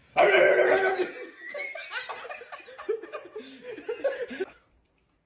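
A sudden loud vocal outburst, then people laughing in broken bursts that die away near the end.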